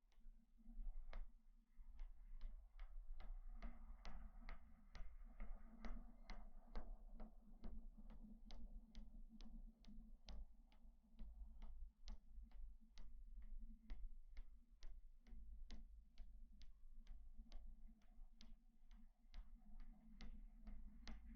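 A run of light, sharp clicks or taps, about three a second and slightly irregular, over a faint rustle and a steady low hum.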